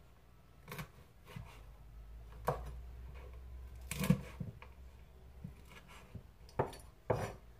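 Chef's knife chopping cooked chicken on a wooden cutting board: irregular knocks of the blade against the board, the loudest about four seconds in, over a low steady hum.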